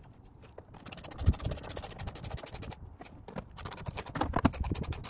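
Ratchet wrench clicking rapidly in two long runs with a short pause between, driving in the screws that hold the frunk latch.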